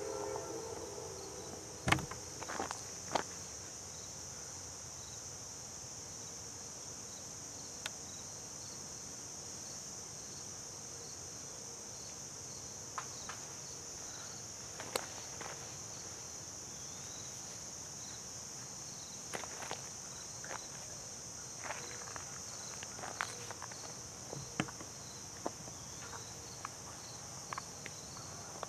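Steady high-pitched insect chorus, with a faint chirp repeating about every half second and scattered short clicks and taps.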